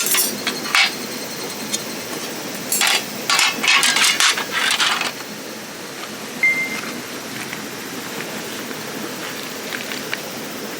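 Hard objects clinking and knocking as they are handled, in a cluster of sharp clatters in the first half. Under it runs a steady rushing noise.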